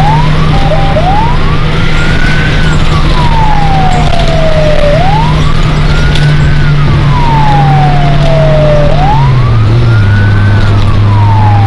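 Fire truck's siren wailing from inside the cab: each cycle rises quickly and falls slowly, repeating about every four seconds. Under it the truck's engine runs with a steady drone, and its note drops about nine seconds in.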